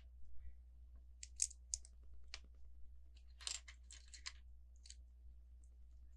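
Faint, scattered clicks and brief rustling of small plastic Lego pieces being handled, with a short cluster of rattling a little past the middle.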